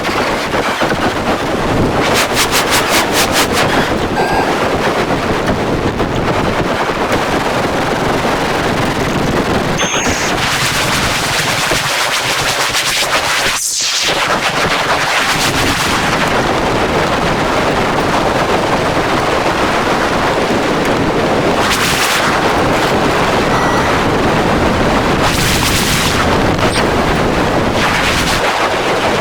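Harsh noise music: a loud, dense wall of distorted static and crackle, with a quick stutter of pulses about two seconds in and a falling sweep about halfway through.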